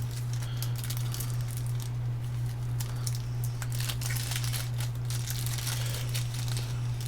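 A steady low electrical hum, with faint crinkling and small clicks from electronic components being handled.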